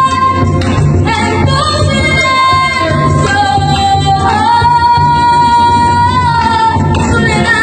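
Christian praise song (alabanza) in Andean style: a sung melody with long held notes over a steady pulsing bass beat.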